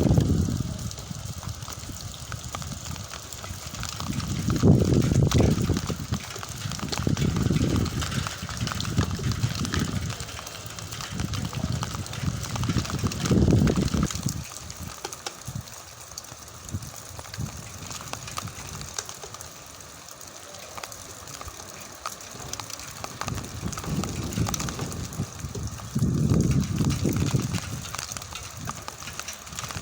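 Rain falling steadily with a constant hiss, broken by several low rumbling swells lasting a second or two each.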